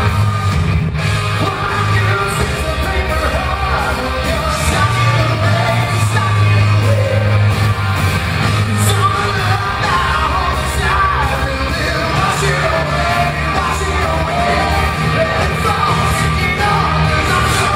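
A live rock band playing, with a male lead singer over drums, bass and electric guitar, heard from among the audience in a theatre. Yells and whoops from the crowd are mixed in.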